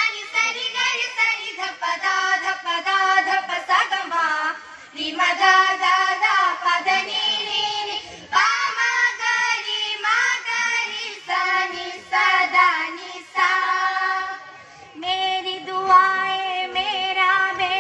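A girls' group singing an Urdu group song together, in sung phrases of a few seconds with brief pauses between them.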